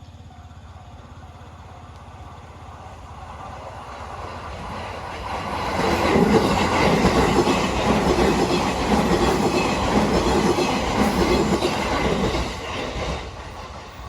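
JR E233-series electric commuter train passing at speed over a level crossing. It builds up over the first few seconds, then the wheels clatter loudly on the rails for about seven seconds before fading near the end. A crossing bell rings faintly and repeatedly at the start.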